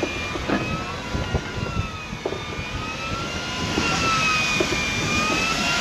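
A motor's steady whine, wavering slowly in pitch, over wind rumbling on the microphone, with a few light knocks.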